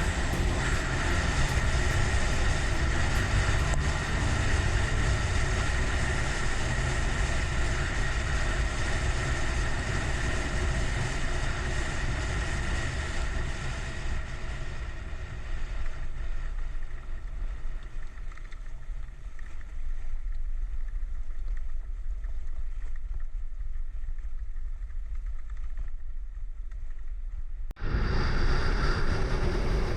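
Motorcycle riding along, its engine running under heavy wind rushing over the microphone. The sound shifts abruptly near the end.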